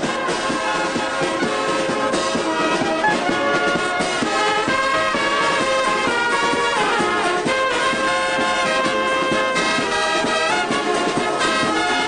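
Brass band playing a sustained, chordal tune, with trumpets, trombones, saxophones and a sousaphone.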